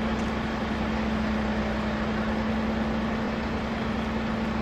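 Fire truck's engine running steadily: a constant hum over an even rumble.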